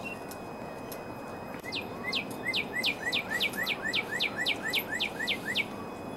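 Northern cardinal singing a fast series of about fourteen clear whistled notes, each sliding steeply down in pitch. The song starts about two seconds in and stops shortly before the end, over a steady low background rush.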